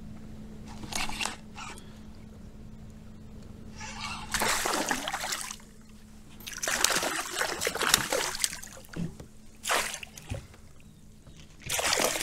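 Small northern pike thrashing and splashing at the surface on the line, in several separate bursts, the longest about four and seven seconds in; near the end it splashes into a landing net.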